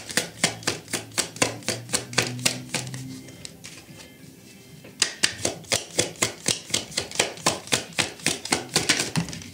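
A tarot deck being shuffled by hand: a quick run of crisp card slaps at about four or five a second, stopping for a moment near the middle and then starting again until near the end.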